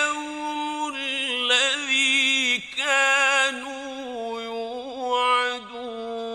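Male reciter chanting the Quran in the ornamented mujawwad style: melismatic runs that waver in pitch, then one long steady held note from about four seconds in.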